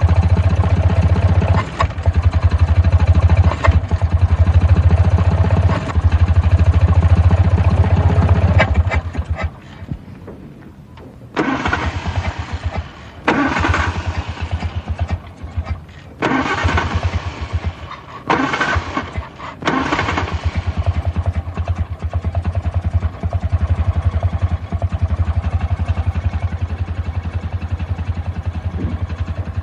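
Old 1940s car engine running with a pulsing beat, dying away about nine seconds in. It is then cranked in five short bursts before it catches and runs steadily again for the last third.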